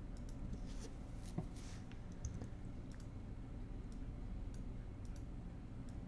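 Quiet, scattered computer mouse and keyboard clicks, the sharpest about a second and a half in, over a steady low hum.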